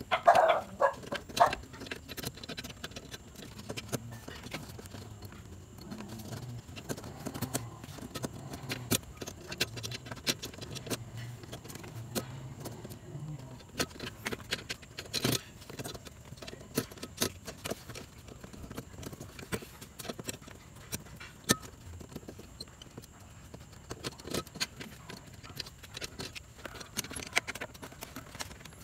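Scattered clicks and light rattles of hands unclipping plastic parts behind a car's headlight housing, working loose the dust cover and H4 halogen bulb, with one sharper click about halfway through.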